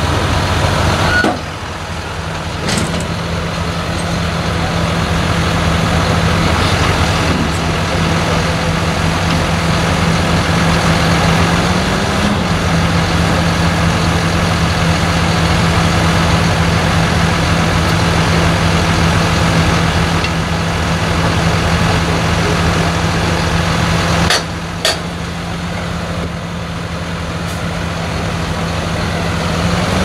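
John Deere tractor engine running steadily under load with a constant low hum, while its rear butterfly mowers are folded up hydraulically. The level dips about a second in, and two sharp clicks come near the end.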